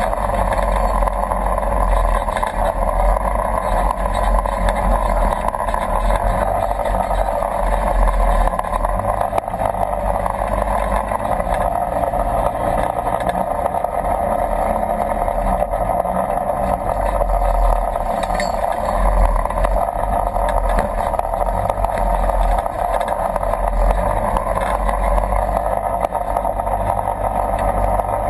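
Polaris RZR 1000 side-by-side's parallel-twin engine running at a steady drone as it drives along a shallow creek bed.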